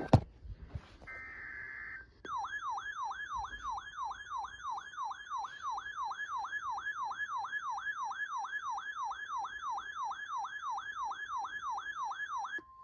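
Emergency alert warning tone: an electronic siren that sweeps down in pitch over and over, about three times a second. It starts about two seconds in and cuts off near the end with a brief steady beep. Just before it, about a second in, comes a short burst of buzzy encoded-alert data tone.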